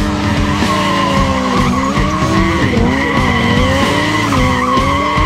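Sport motorcycle held at high revs while its rear tyre spins and squeals against the pavement in a smoky stunt drift. The engine pitch wavers up and down under a steady high screech.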